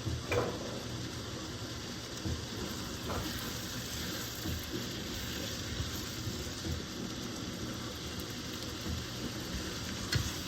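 Chopped onion, celery, bell pepper and garlic sizzling steadily in melted butter in a pan, with a few light knocks from a utensil.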